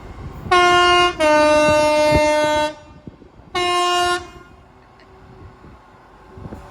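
A train's two-tone horn sounds three times, high, low, then high again, with the low note held longest.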